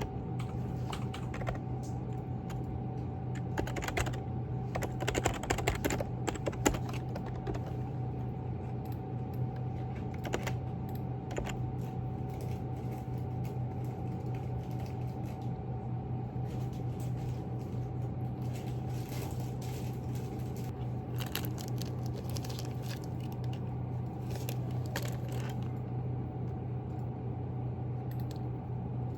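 Typing on a computer keyboard: a continuous patter of key clicks, louder for a few seconds about five seconds in, over a steady low hum.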